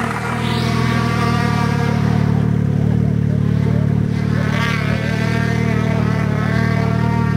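Snowmobile engine running hard at high revs, its pitch climbing in the first second and then holding high with brief wavers around the middle and near the end.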